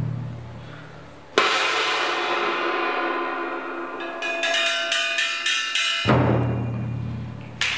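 Live drum ensemble playing: a cymbal or gong crash rings out, then a quick run of short bright strikes, then a big low drum hit with a crash near the end.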